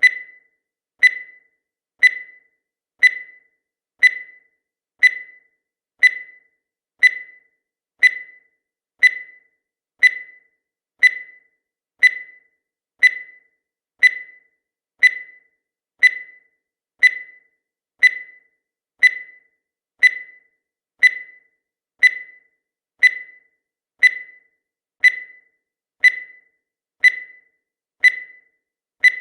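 Countdown timer sound effect: a short, sharp tick about once a second, each one a brief high tone that dies away at once.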